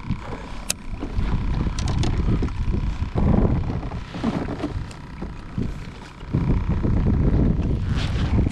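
Gusty wind blowing across the microphone, a low rumble that swells and fades, with a few sharp little clicks in the first couple of seconds.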